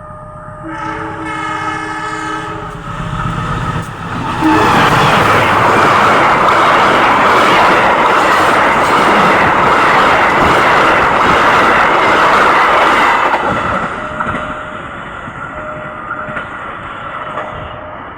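A train horn sounds for about two seconds, then the train passes close by in a loud, steady rush of wheel and rail noise for about nine seconds before it fades away.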